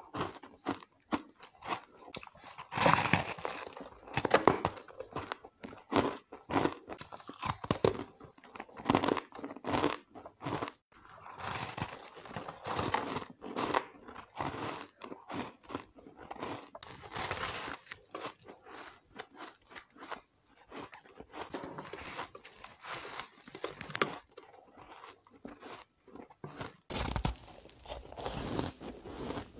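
Close-up crunching and chewing of mouthfuls of frozen crushed ice: many rapid, irregular crisp crunches. About three seconds before the end the crunching changes to bites into a powdery frozen ice block.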